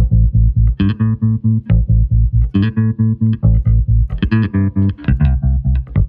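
Electric bass played through a Boss TR-2 Tremolo pedal at full depth with the wave knob turned all the way right, so its volume is cut on and off abruptly several times a second. The result is a fast, even stutter over a changing line of notes.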